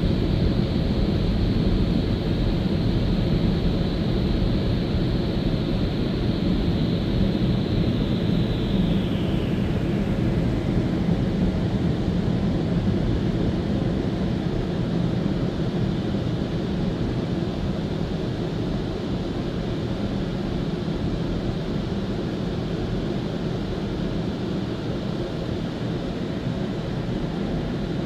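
Touchless automatic car wash running around the car, heard from inside the cabin: a steady heavy rushing whose higher hiss drops away about nine seconds in, after which it eases slightly.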